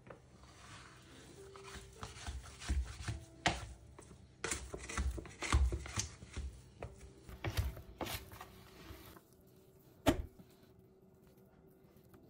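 Plastic bench scraper scraping and gathering sticky bread dough across a countertop: irregular scrapes, rubs and light knocks for the first nine seconds or so, then quieter, with one sharp knock about ten seconds in.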